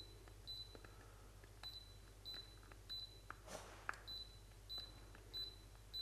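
Daikin split-system indoor unit giving faint short single beeps, about eight of them, each answering a press of the remote's button as fault codes are stepped through, with light button clicks between. Each short beep means the code just sent is not the stored fault.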